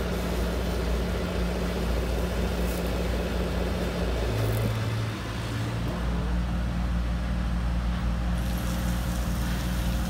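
Electric hydraulic pump of a large radio-controlled Caterpillar excavator running with a steady hum while the arm works. Its note shifts about four seconds in and again about six seconds in.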